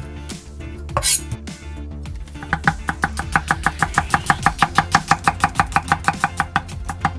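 A kitchen knife slicing an onion into thin strips, tapping on the cutting board in rapid, even strokes from about two and a half seconds in, over background music.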